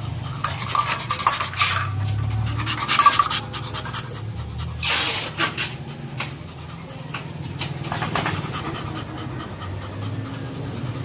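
Small Shih Tzu-type dog panting rapidly with excitement, with a brief louder rush of noise about five seconds in.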